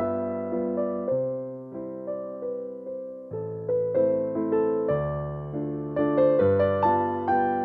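Background music: gentle electric piano playing soft chords and a slow melody, a new note or chord about every second.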